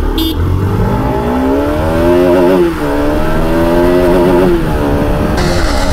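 Single-cylinder motorcycle engine accelerating hard from a standing start, the revs climbing, then dropping at a gear change about two and a half seconds in and again near the end. A brief horn toot sounds right at the start.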